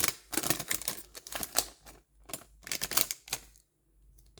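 Crinkling and crackling of a hockey card pack's wrapper as it is torn open and the cards are pulled out, in a quick run of crackly bursts that stops about three and a half seconds in.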